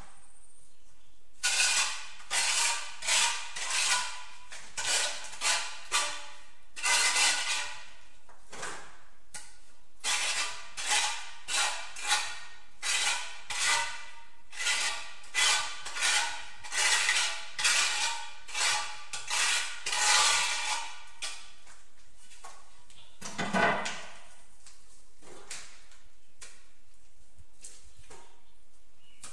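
Steel trowel scraping tile adhesive across the back of a ceramic tile in short repeated strokes, about one and a half a second. The strokes go on for some twenty seconds, stop, and then come once more a couple of seconds later.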